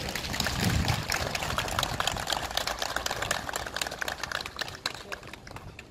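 Applause: a crowd of people clapping, a dense patter of hand claps that thins out near the end.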